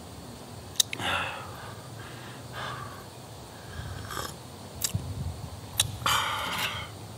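A person drinking coffee from a stainless steel mug: several short breathy puffs of breath, the loudest about six seconds in, and a few sharp light clicks.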